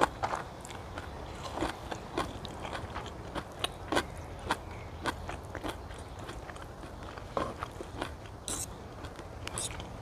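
Chewing and crunching of a mouthful of stir-fried sea kale, close to a clip-on microphone, with irregular light clicks of a spoon and fork against the plate.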